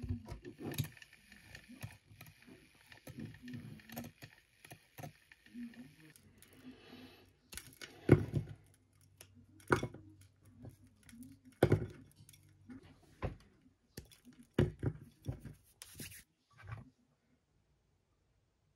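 A handheld milk frother whirs in a glass mug of yogurt and soy milk for the first several seconds. Then fingers break an oatmeal bar into pieces that drop into a ceramic bowl, giving a string of crackles and sharp knocks, the loudest about eight seconds in.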